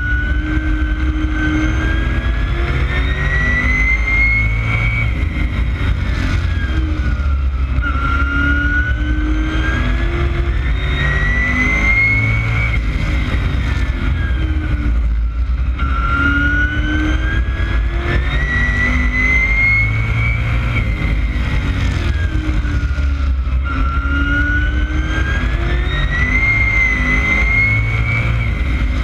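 Street stock race car engine heard from inside the cockpit at race pace, its revs climbing for about four seconds and then dropping for about three, four times over, as it accelerates and backs off lap after lap.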